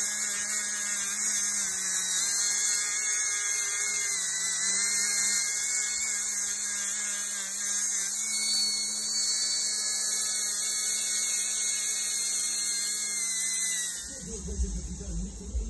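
Small rotary disc sander running at high speed with a steady whine and hiss as it sands rust off a curved metal casting from a 1979 Powermatic drill press, the pitch wavering a little as the disc is pressed on. It stops about 14 seconds in.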